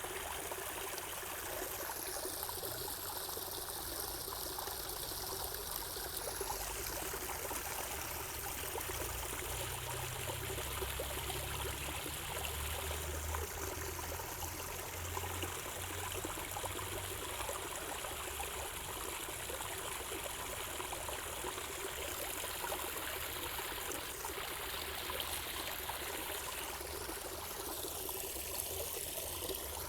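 Running water, a steady, unbroken flow.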